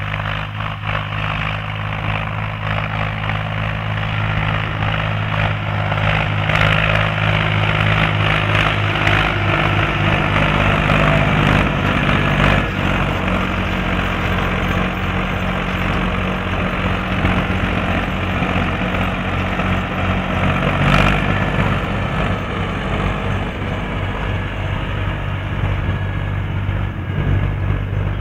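Ursus C-360-3P tractor's four-cylinder diesel engine running steadily under load while pulling a tine harrow over dry ground. It grows louder as the tractor passes close by partway through, then eases off a little as it pulls away.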